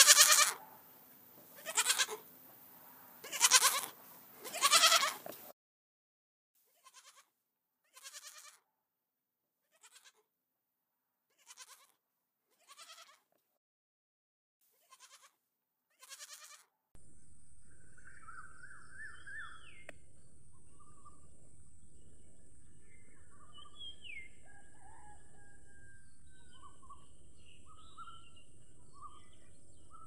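Young goats bleating: four loud calls in the first five seconds, then a string of faint, short bleats. From about 17 seconds in, birds chirping over a steady high hiss.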